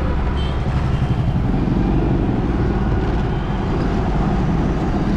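Road traffic heard from a moving vehicle: a steady low rumble of engines and tyres, with motorcycles and cars passing close by.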